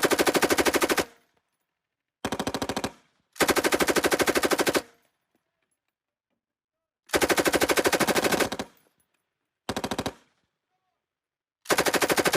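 Machine gun firing six bursts of rapid automatic fire, each about half a second to a second and a half long, with pauses of half a second to two and a half seconds between them; the last burst starts near the end.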